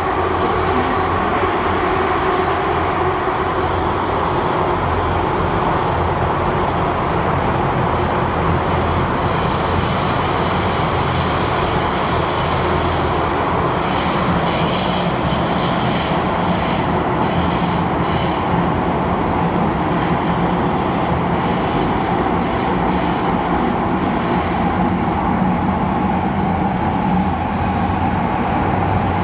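An MTR M-Train metro car heard from inside the carriage as it runs through a tunnel: a loud, steady rumble of wheels on rail with a sustained high squeal from the wheels. Light clicks and rattles come through the middle and later part.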